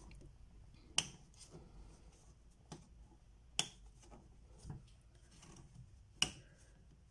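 Flexible metal retaining tabs on the back of a picture frame being bent open one by one: three sharp clicks a little over two and a half seconds apart, with a few fainter taps between.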